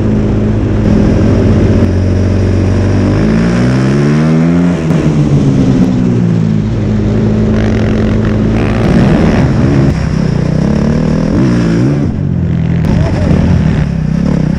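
Engine of a snow vehicle under way over snow: revs steady at first, then climbing and falling several times as the throttle is worked, with a short drop about twelve seconds in and a climb again near the end.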